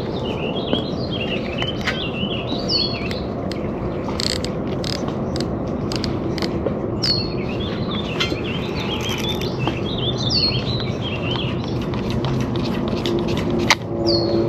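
A songbird singing a warbling phrase of quick notes that ends in a high slurred note, repeated about every four seconds, with a few sharp clicks in between.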